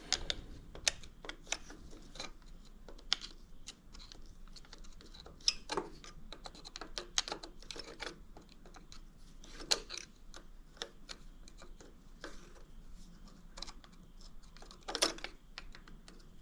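Irregular clicks and metallic clinks of hand tools working the last carburetor mounting bolt loose on a lawn tractor engine, with a few louder knocks scattered through.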